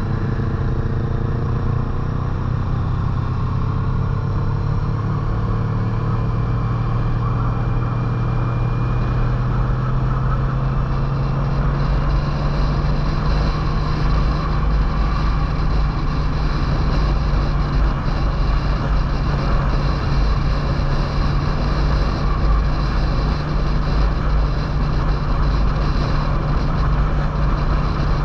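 Touring motorcycle engine running steadily at road speed, heard from the rider's seat with a steady rush of wind and road noise. The engine note drifts slowly upward over the first several seconds.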